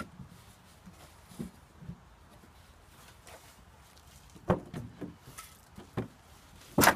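Wooden cat-house frame being handled: scattered light knocks and scuffs of wood, with a sharp, loud knock near the end.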